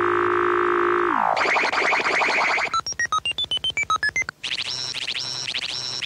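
Synthesized electronic sounds: a held tone that slides downward about a second in, then a buzzy tone, then a quick run of short beeps at jumping pitches, about eight a second. After a brief break it turns into repeating warbling chirps.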